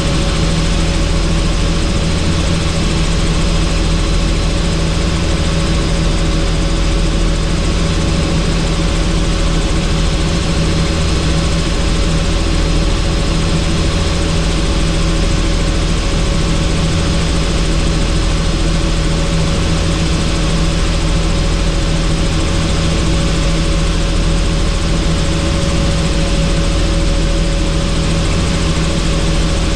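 Helicopter engine and rotors running steadily in flight, a loud, unchanging drone with a constant hum and a rushing hiss over it.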